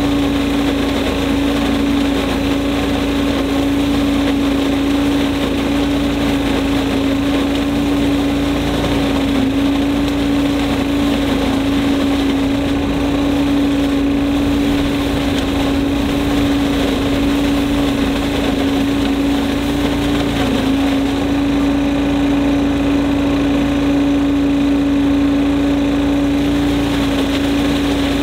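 Cyclone Rake leaf vacuum's small gas engine and fan running steadily with a constant hum while leaves are sucked up the intake hose.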